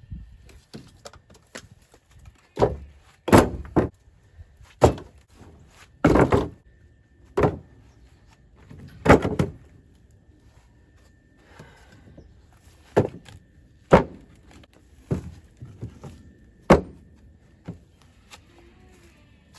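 Split firewood logs being tossed down one at a time, each landing with a sharp wooden knock, irregularly every second or two with a short pause about halfway through.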